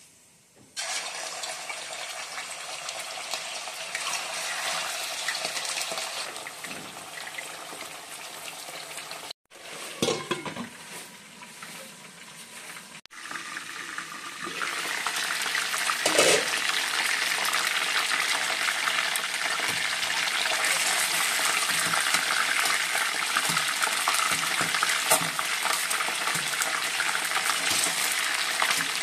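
Chicken pieces frying in hot mustard oil in a deep kadai: a steady crackling sizzle that starts suddenly about a second in as the chicken goes into the oil, growing louder and denser in the second half. A few knocks of lid and utensils on the pan come through it.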